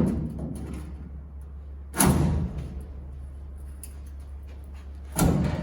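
Three heavy strikes on auto-body sheet metal being stretched and pulled back into shape, about two and three seconds apart, each with a short ringing tail.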